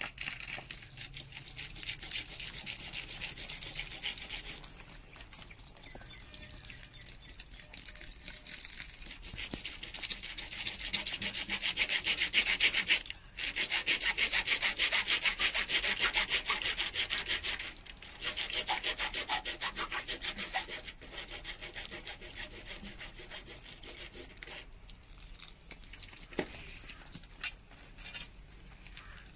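Hacksaw blade cutting through a PVC water pipe in quick back-and-forth strokes, with short pauses about 13 and 18 seconds in; the strokes grow fainter near the end.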